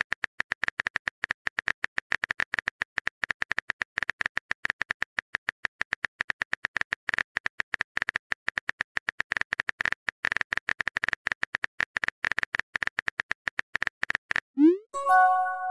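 Typing sound effect: a rapid, irregular run of sharp clicks. About a second before the end it breaks off for a short rising pop and a chime of a message sent.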